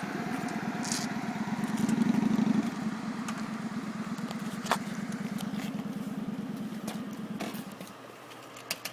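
Motorcycle engine idling with a rapid, even pulse. It grows louder for a moment about two seconds in, then fades out about eight seconds in. A single sharp click sounds midway.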